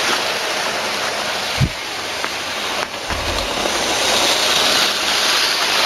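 Model railway freight train running along the track close by: a steady rushing rattle of wheels on rails and motor, growing a little louder about four seconds in. A short low thump about one and a half seconds in.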